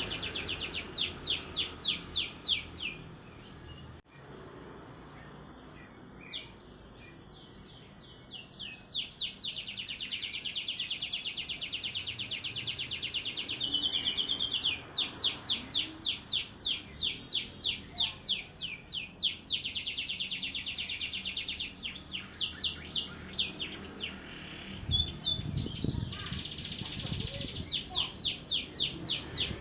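Domestic canary singing fast, tightly packed trills of rapidly repeated chirping notes, one phrase running into the next. The song breaks off into a quieter stretch about four seconds in and picks up again a few seconds later. A brief low rumble comes near the end.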